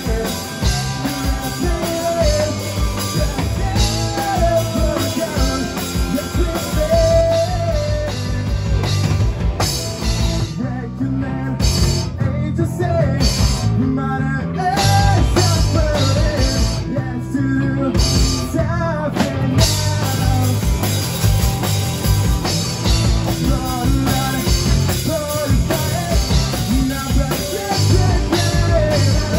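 Live rock band playing on amplified stage gear: electric guitars, bass and drum kit, with a man singing. Midway the cymbals cut out in several short breaks, a stop-start passage, before the full band carries on.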